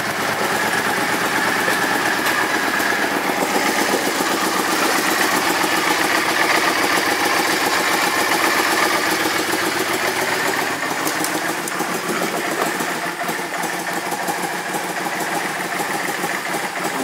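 Carbureted air-cooled V-twin engine of a 2003 Yamaha V-Star 650 Custom motorcycle idling steadily.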